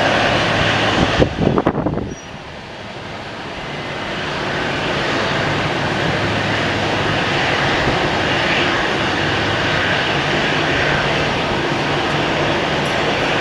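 Jet airliner engines running with a steady roar and whine; a brief rough crackle comes about a second and a half in, then the noise drops suddenly and builds back up over the next two seconds before holding steady.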